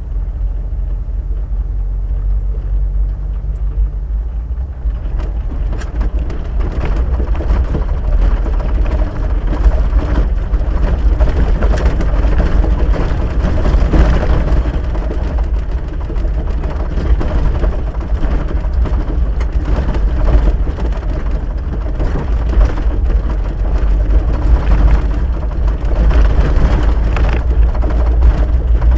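Vehicle driving on a dirt road, heard from inside the cabin: a steady low rumble of engine and tyres. From about five seconds in the road gets rougher and rattles and gravel clicks join in.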